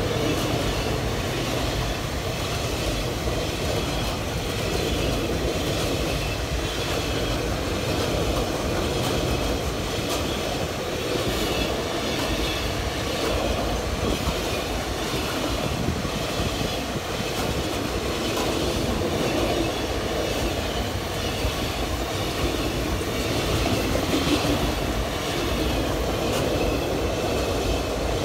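A freight train's open-top gondola wagons rolling past close by: a steady rumble of steel wheels on rail with a repeated clickety-clack from the passing wheelsets.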